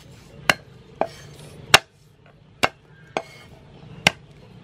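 Cleaver chopping garlic cloves on a thick round wooden chopping block: six sharp knocks of the blade into the wood, irregularly spaced about half a second to a second apart.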